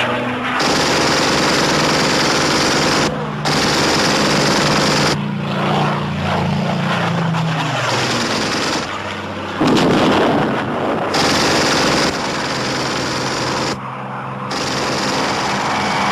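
Several long bursts of aircraft machine-gun fire, each starting and stopping abruptly, over the steady drone of a piston aircraft engine whose pitch falls partway through.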